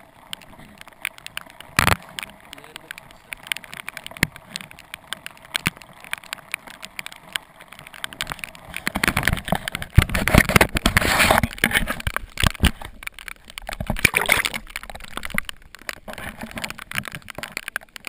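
Irregular clicks and knocks with water sloshing around a kayak. About nine to twelve seconds in, louder rubbing and handling noise as something covers the camera, and again briefly near fourteen seconds.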